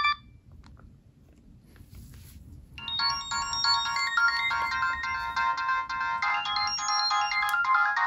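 A Nokia 3650's built-in polyphonic MIDI ringtone playing through the phone's small speaker. A previous tone cuts off at the start, and after a pause of about three seconds the next tune starts with quick, bright, multi-voiced notes.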